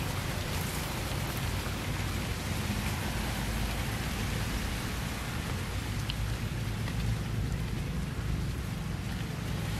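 Steady outdoor background noise: an even hiss with a low rumble underneath, no distinct sound standing out.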